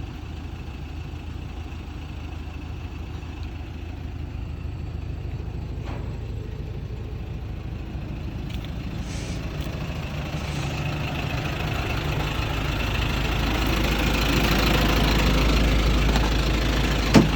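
Logging truck engine running, with a steady low hum that gets steadily louder over the second half. A brief sharp knock comes just before the end.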